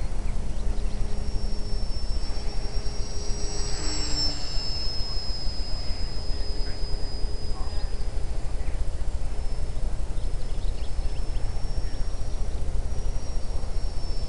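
Thin high-pitched whine of a small Cox glow engine on an RC model plane in flight, rising a little in pitch about three to four seconds in, then steady. A heavy low rumble of wind on the microphone runs under it and is the loudest thing heard.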